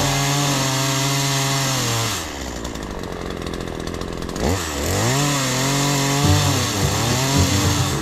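Gas chainsaw cutting a tree branch. It runs at high speed, drops back toward idle about two seconds in, then revs up again about halfway through and cuts, its pitch sagging and rising under load.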